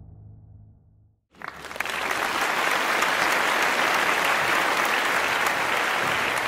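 A low, sustained musical tone fades out in the first second. After a brief silence, a large crowd breaks into loud, steady applause, a dense crackle of many hands clapping.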